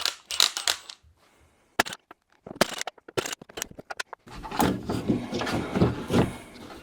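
Sharp clicks and knocks of hand tools and metal parts inside a Jeep XJ rear door as the lock actuator is worked loose, then a denser stretch of rattling and rustling from about four seconds in.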